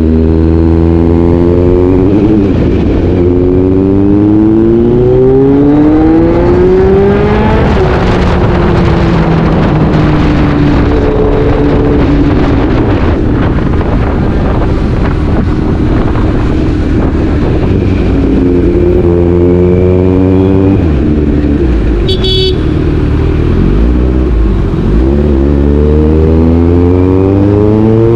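Kawasaki Z900's inline-four engine and exhaust heard from the rider's seat, pulling hard with its pitch climbing through the gears. It eases off with falling pitch about a third of the way in, cruises, then accelerates again twice near the end.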